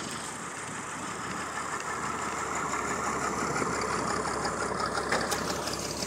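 Stinson 108's air-cooled Franklin six-cylinder engine and propeller running at low power as the taildragger rolls along the runway, growing steadily louder as it draws near.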